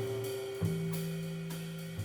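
Jazz quartet of trombone, guitar, bass and drums playing, with a long held note and a lower held note entering about half a second in, over bass and cymbals.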